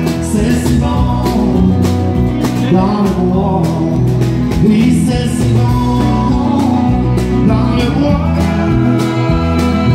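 Live country band playing: strummed acoustic guitar, electric bass, electric guitar and drums keeping a steady beat.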